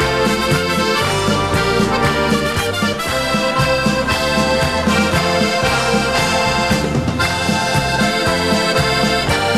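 Instrumental background music with an accordion melody over a regular, pulsing bass line.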